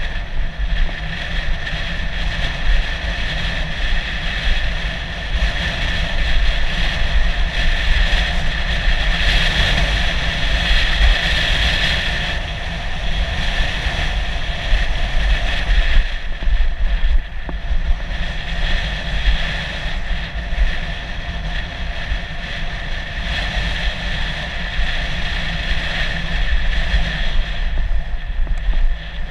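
Wind buffeting the microphone of a camera mounted on a mountain bike rider, with the bike's tyres rumbling over a dirt singletrack trail. The noise is loud and steady throughout, swelling a little in the middle.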